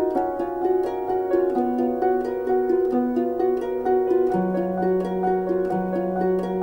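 Background music of quick, evenly repeated plucked-string notes over held lower notes, which step to new pitches a couple of times.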